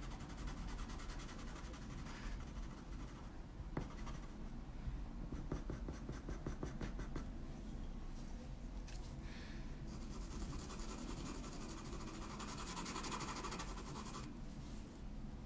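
Chalk pastel pencils scratching faintly on toned paper in short, irregular strokes.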